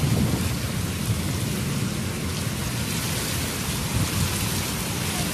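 Heavy rain pouring steadily in a storm, with a choppy low rumble underneath.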